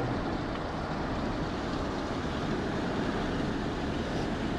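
Car driving along an unsealed forest road, heard from inside the cabin: a steady rumble of engine and tyre noise.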